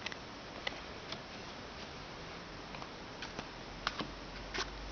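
Faint, irregular clicks and light taps of trading cards being handled, over a steady background hiss.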